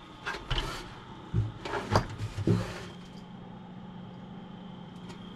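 A few handling knocks and clicks, then, about two and a half seconds in, a PC case fan settles into a steady hum with a thin high whine. This is the noisy-fan symptom, which the technician puts down to the bearing oil stiffening in the cold.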